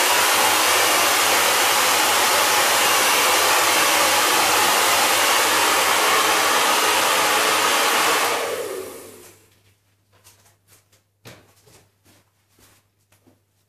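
Handheld hair dryer blowing steadily on a freshly spray-chromed piece to dry the coating. It is switched off about eight seconds in and winds down over about a second, followed by a few faint clicks.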